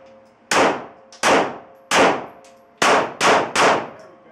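Handgun firing six shots in a three-shots-per-target drill: the first three about three-quarters of a second apart, the last three in a quicker string about a third of a second apart.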